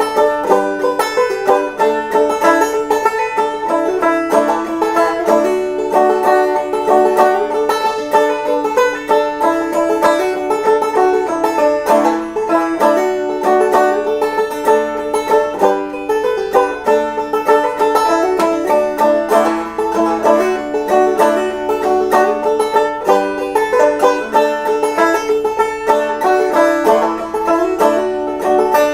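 Banjo played clawhammer style: an instrumental break of steady, evenly picked notes, with no singing.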